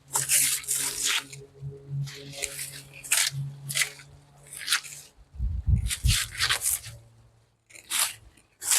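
Loppers cutting and tearing through dry, dead banana leaves and stalks: a series of about ten separate crunching, crackling cuts, with leaves rustling and dropping in between. A low steady hum sits underneath for the first half.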